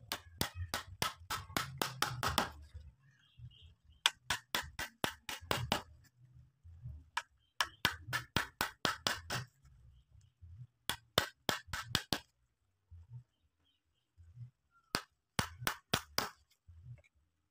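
A wood chisel being driven into a drilled-out mortise with rapid sharp blows, chopping out the waste wood. The blows come in five quick runs of about five a second, each a second or two long, with short pauses between.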